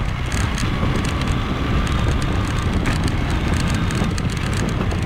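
Motorcycle riding along a dirt trail strewn with dry leaves: steady engine and tyre noise, with frequent short crackles and clicks.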